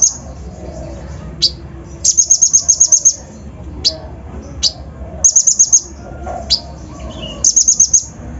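Konin (kolibri ninja) sunbird singing: three fast, high trills of about ten rapid notes each, with single sharp downward-sweeping notes between them.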